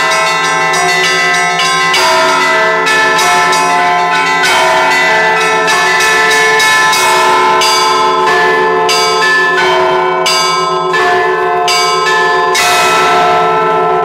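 Orthodox church bells rung in a razgonny zvon, the Sunday peal at the end of the divine service. Small bells strike quickly, about three times a second, over the steady hum of a larger bell, and all of them ring together.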